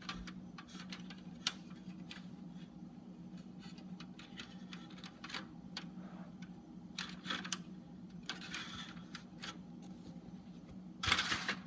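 Scattered light clicks and scrapes of the printer's plastic paper tray and its sliding paper guides being handled, with a louder rustle or scrape near the end, over a steady low hum.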